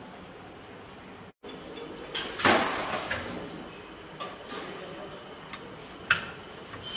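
Automated parts-inspection machine running with a steady hum from its conveyor. About two seconds in, a loud rushing, sliding sound lasts about a second, and a sharp click follows near the end.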